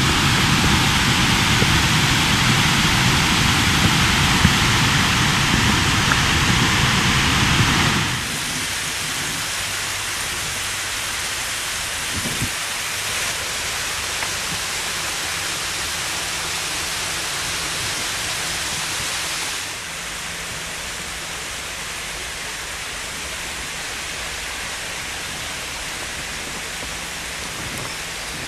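Steady rush of water, an even hiss with no distinct events. It is loudest for the first eight seconds, then drops abruptly, and drops again a little past the middle.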